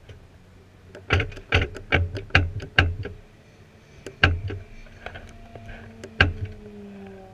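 Sharp clicks and knocks in the cockpit of a crashed, stationary Formula Renault 2.0 single-seater with its engine off: six in quick succession about a second in, then two more spaced well apart. Faint falling tones join near the end.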